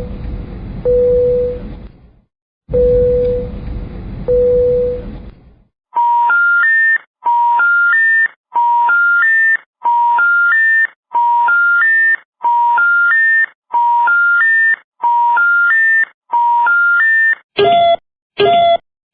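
A run of electronic warning sounds. First a buzzy low alarm tone sounds in pairs, twice over. Then a rising three-note electronic beep pattern repeats about once a second for roughly ten seconds, and near the end quick short beeps follow, about one and a half a second.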